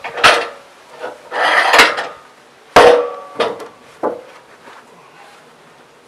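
Freshly sawn fir boards being handled and stacked by hand, wood knocking on wood. There is a knock just after the start and a scraping slide about a second and a half in. The sharpest knock comes near three seconds, with lighter knocks after it and then little but background.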